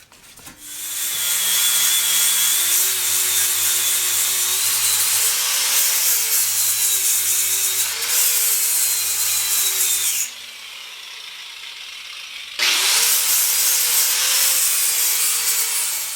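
Power-tool wire wheel scrubbing bare steel on a truck frame rail to clean it for welding: a harsh, loud hiss over a motor whine that dips in pitch under load. It breaks off about ten seconds in and starts again a couple of seconds later.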